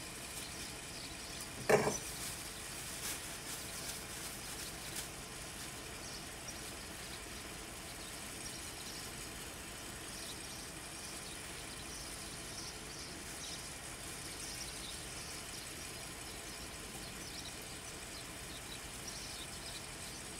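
Hand work on a stopped Caterpillar generator's diesel engine: one sharp knock of a tool or part against metal about two seconds in, then a few light clicks. Faint high chirps sound over a steady background throughout.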